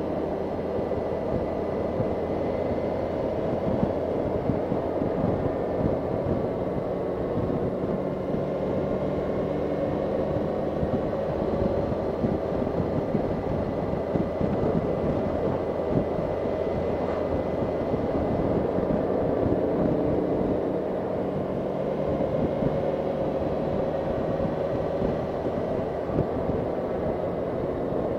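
Motorcycle engine running at a steady cruise of about 40 mph, with wind and road noise, its pitch drifting slightly up and down.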